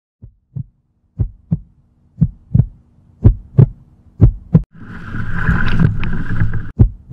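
Heartbeat sound effect: paired low thumps at about one beat a second, growing louder, over a faint low hum. About four and a half seconds in, a loud rush of wind and splashing water takes over as a kayak plows through breaking surf, ending on one more thump.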